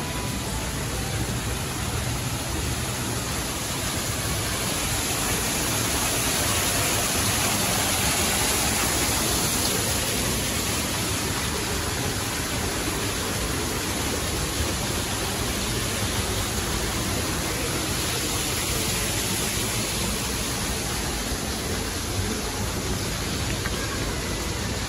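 Steady rushing noise with no breaks, swelling slightly a few seconds in and easing back after about ten seconds.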